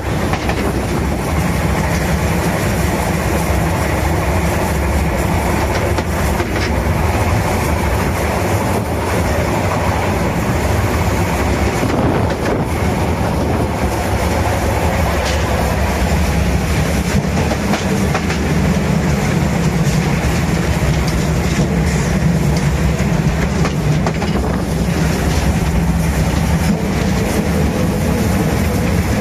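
Narrow-gauge steam train running, heard close to HSB steam locomotive 99 7240-7: a steady rolling and running noise of the wheels on the track.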